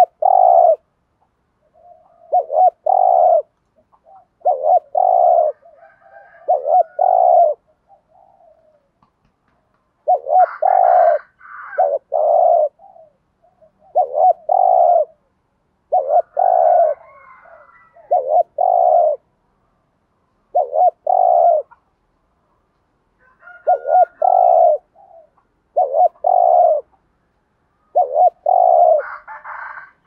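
Spotted dove cooing close up: bursts of short, low coos, two or three at a time, repeated after pauses of a second or two.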